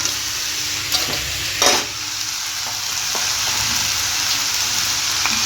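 Rice, vegetables and fried chicken pieces sizzling in oil in a kadai with a steady hiss while a spatula stirs them, clicking against the pan a few times, with one louder scrape under two seconds in.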